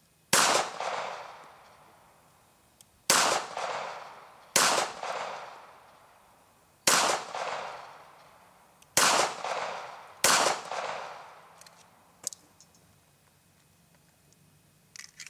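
East German Makarov PM pistol firing 9x18mm Makarov rounds in slow aimed fire: six shots a second and a half to three seconds apart, each followed by a short echo. A few light clicks follow near the end.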